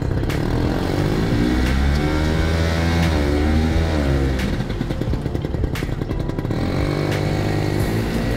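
Engine of a 1964 Jiger 152 amphibious six-wheel ATV running on the water, its pitch rising about a second in, dropping around four seconds, and climbing again near seven seconds as the throttle is worked.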